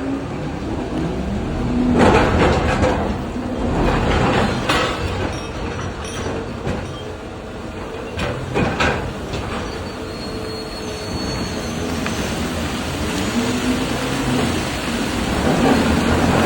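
Electric excavator at work, its drive motors whining in tones that rise and fall again and again, with a heavy rumble throughout. Ore crashes and clatters into the steel rail wagons several times, about 2, 4.5 and 8–9 seconds in.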